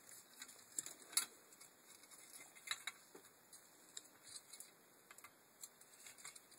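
Faint, scattered clicks and light rattles of a car window regulator being handled: its plastic guide rail, metal clips and bracket, and cable knocking and clicking together as the parts are fitted, with the sharpest clicks about a second in and near the three-second mark.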